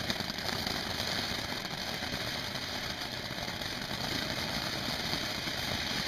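TNT Sunflower ground fountain firework burning, its jet of sparks giving off a steady hissing spray.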